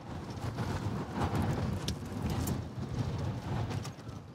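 Steady low rumble of road and engine noise heard inside a moving police patrol car, with a few faint clicks.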